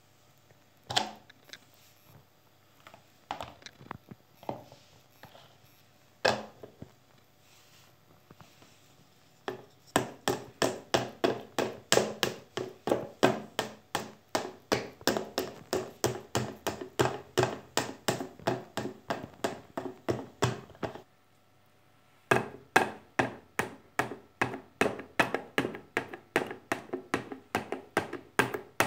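Wooden spoon tapping the skin of a halved pomegranate set cut-side down on the grid of a plastic seed-removing bowl, knocking the arils out through the grid. A few scattered knocks come first, then steady runs of about three taps a second with a short pause about two-thirds of the way through.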